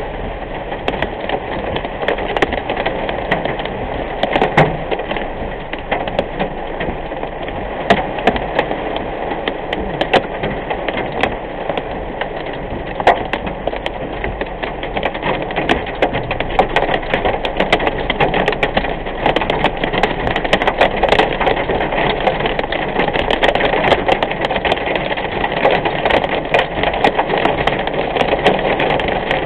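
Heavy rain pelting the windshield and roof of a moving car, a dense crackle of many sharp drop impacts over steady road noise, heard from inside the cabin.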